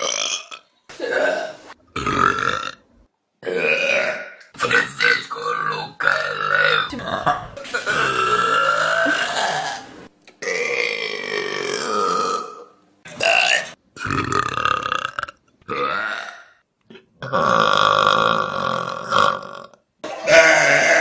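Human burps, more than a dozen in quick succession from different people. Most are short, and a few are drawn out for about two seconds.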